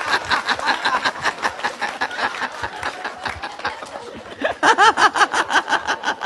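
A man laughing hard and uncontrollably in quick, repeated bursts, several a second, getting louder and higher-pitched about four and a half seconds in.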